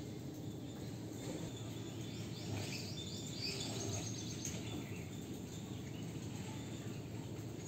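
Outdoor ambience: a steady background hiss with a faint insect drone, and birds chirping in a quick run of short calls a couple of seconds in.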